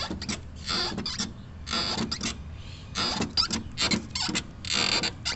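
Clutch release fork of a Fiat Siena 1.4 Fire creaking as its arm is levered by hand with the cable disconnected, in a series of short creaks about one a second. This is the crunch the owner feels in the pedal box and suspects comes from the fork bushings.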